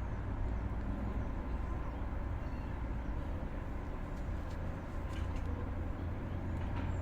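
Steady low rumble of outdoor background noise, with a few faint clicks about five seconds in.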